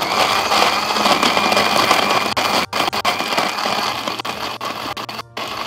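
Countertop electric blender running at speed, churning ice cubes into a milky chocolate date shake, with two momentary breaks in the motor noise, one about midway and one near the end.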